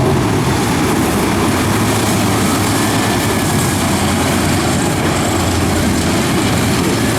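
Mini wedge dirt-track race cars running at racing speed around the oval, a steady, loud engine noise from the pack.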